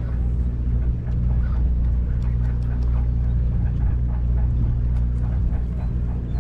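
A sportfishing boat's engine running steadily with a low, even hum.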